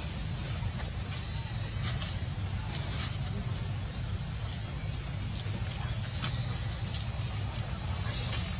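Steady high-pitched insect chorus that dips briefly about every two seconds, over a low steady rumble, with a few faint clicks.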